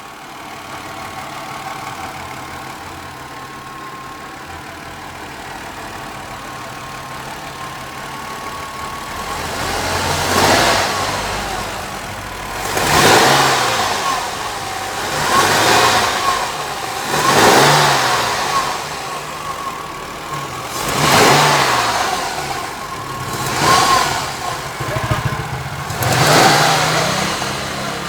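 Ford Contour engine idling steadily, then revved in seven short throttle blips two to three seconds apart. This is the engine the owner hears a rattle ('cascabeleo') from when accelerating, only once it is warm, and which his mechanic could not find.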